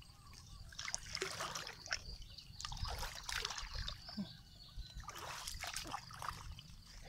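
Morning pond-side ambience: scattered animal calls and a faint steady insect drone over light trickling and splashing of water.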